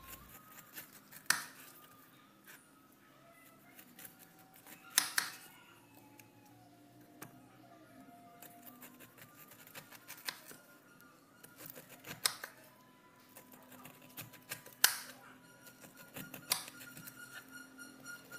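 A knife slicing the skin off a pineapple, knocking sharply against the cutting board about six times at gaps of a few seconds, with small cutting sounds in between. Soft background music plays under it.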